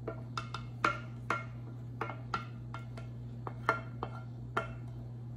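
A wooden spoon scraping and knocking against a tilted stainless steel pan as thick cream sauce is scraped out. It makes irregular sharp clicks, two or three a second, over a steady low hum.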